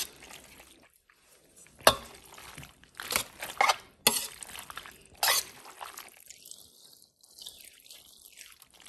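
Metal spoon stirring thick, creamy bow-tie pasta in a large pot: wet sloshing with about five sharp scrapes of the spoon against the pot in the first half, then quieter for the last few seconds.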